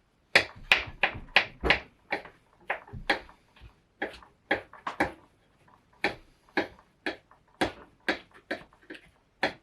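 Knife chopping on a cutting board, a run of sharp, irregular strokes about two a second.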